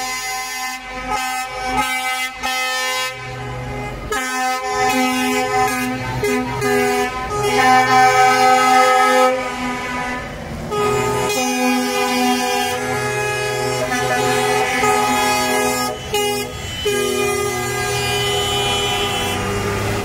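Several truck air horns sounding long, overlapping blasts that shift in pitch every few seconds as heavy trucks drive past.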